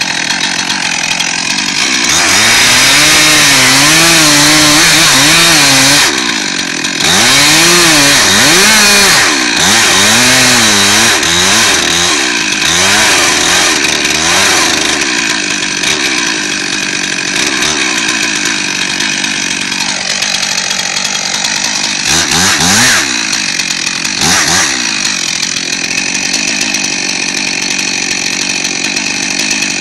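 Gas chainsaw cutting into a log, its engine pitch wavering up and down under load, with a short break about six seconds in. Over the last third it runs lighter, with a couple of quick revs, and settles to a steady idle near the end.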